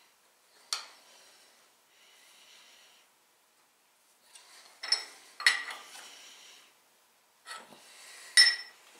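Scattered light metallic clicks, taps and scrapes of a steel V-block and its clamps being handled on a milling-machine table while it is aligned and tightened down. There is a single click about a second in, a cluster of clicks around the middle, and the sharpest click near the end.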